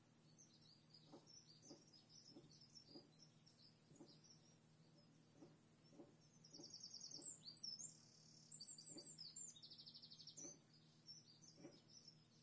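Faint songbird singing: high chirps with a run of rapid trills in the middle, over a steady low hum, with soft ticks at irregular intervals.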